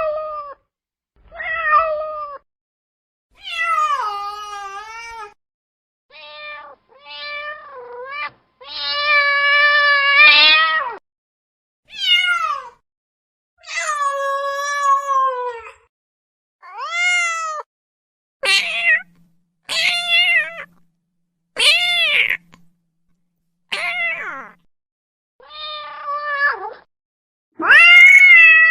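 A run of domestic cat meows, about fifteen separate calls with short gaps between them. One is drawn out for about two seconds near the middle, and a loud one comes at the very end.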